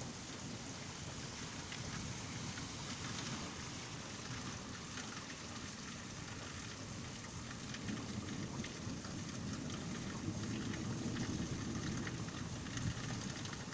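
Heavy rain falling steadily during a thunderstorm, with many small drop ticks. A low rumble of thunder swells through the second half.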